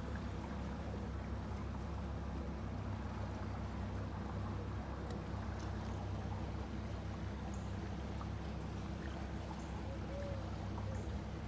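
Boat engine running steadily while under way, a steady low hum.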